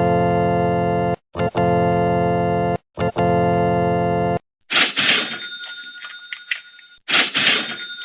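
Three held organ-like chords, one after another, each about a second and a half long. Then two crashing metallic hits, each with a high ringing tone that dies away over about two seconds. These are stock video-editor sound effects.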